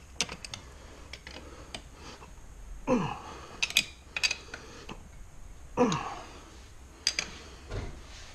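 Small hand tools, a wrench and pliers, clinking against small metal engine parts as they are handled, a few sharp clicks scattered through. The loudest sounds are two short sighs, falling in pitch, about three and six seconds in.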